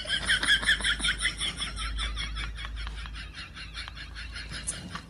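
A cat chattering: a rapid, even run of short high chirps, many a second, growing fainter over the few seconds.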